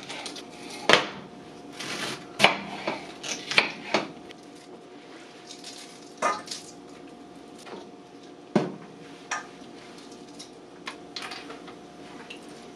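Scattered knocks and clanks of kitchen utensils: a chef's knife tapping and scraping on a wooden cutting board and a stainless steel mixing bowl clinking as sliced red cabbage is gathered into it.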